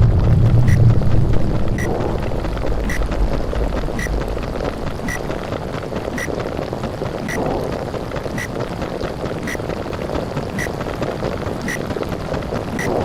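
Underwater sound effect: a steady, muffled bubbling wash, with a short high tick about once a second. A deep rumble fades out during the first two seconds.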